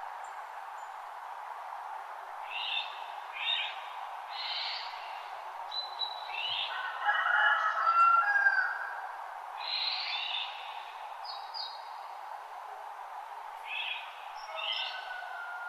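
Dawn chorus of birds calling in short chirping phrases every second or two, with one louder, busier call a little past the middle. Beneath them runs the steady rush of a creek bubbling over rocks.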